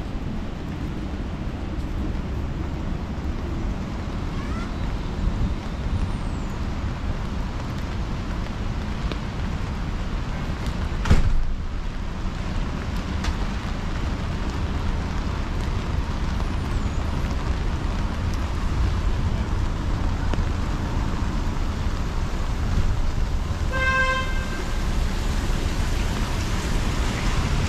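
Steady city street traffic noise with a heavy low rumble. There is one sharp knock about eleven seconds in, and a short horn toot near the end.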